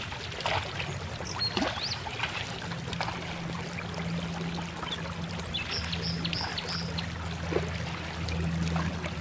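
Low steady drone of a distant boat engine out on the river, under a rushing hiss, with a few short high chirps, including a quick run of four about six seconds in.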